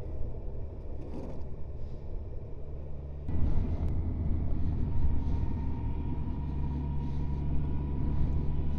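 Kawasaki Versys motorcycle riding at road speed, heard from the bike: a steady low engine and road rumble. The sound changes abruptly and gets louder about three seconds in, and a faint steady whine comes in from about five seconds in.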